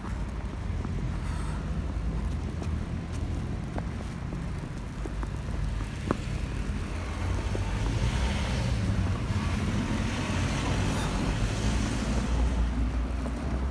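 Car traffic on a snow-covered street: a steady low engine rumble, with a hiss of tyre noise swelling from about eight seconds in as a car passes.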